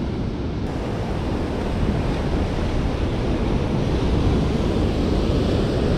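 Ocean surf washing in, mixed with wind rumbling on the microphone; a steady noise that grows a little louder about two seconds in.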